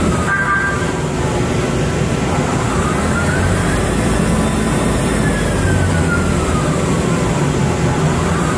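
1989 Okuma LC40-2ST CNC lathe running under power: a steady hum and noise, with a faint whine that rises in pitch about three seconds in and then falls slowly.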